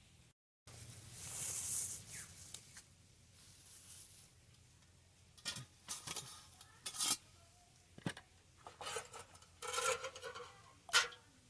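Kitchen handling sounds: a short hissing rustle about a second in, then scattered clicks and knocks of utensils and vessels, the sharpest near the end.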